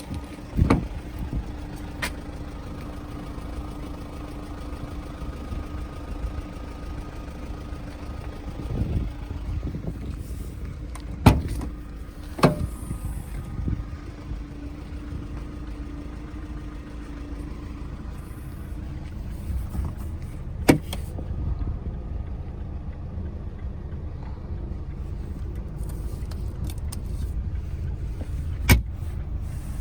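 Steady low rumble like a running vehicle, with a faint steady hum and a few sharp clicks or knocks.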